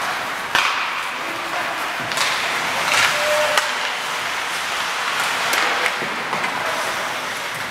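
Ice hockey play in an arena: skates scraping the ice and several sharp clacks of sticks on the puck, over a steady hall hubbub.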